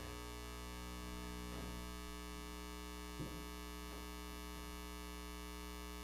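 Faint steady electrical mains hum and buzz, with a soft knock about three seconds in.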